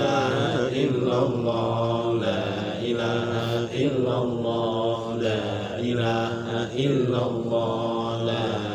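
A group of men chanting Islamic dhikr together in Arabic, in a repeating sung phrase.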